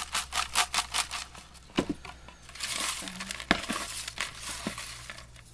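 Paper name slips rustling as they are shaken and tossed about in a box, about five quick shakes a second at first, then a hand rummaging through the slips with two sharp knocks against the box.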